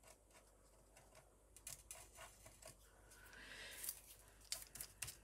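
Near silence with a few faint light taps and rustles of paper and card being handled and positioned.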